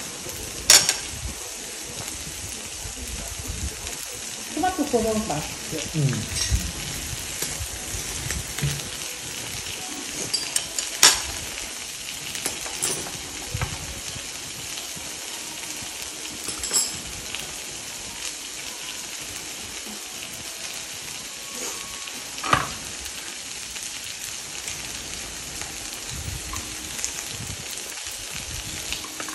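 Beef and vegetables sizzling steadily in a frying pan on a portable butane gas stove, with a few sharp clicks of chopsticks and tongs against the pan. A short falling pitched sound comes about five seconds in.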